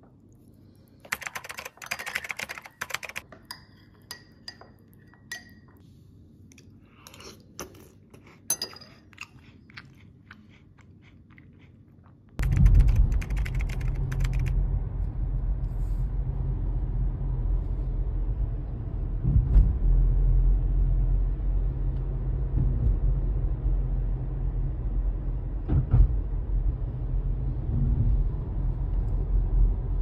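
Crunching and a few light clinks of a teaspoon against a ceramic tea mug. About twelve seconds in, these give way to the steady low rumble of engine and tyres heard inside a moving car, with a couple of bumps.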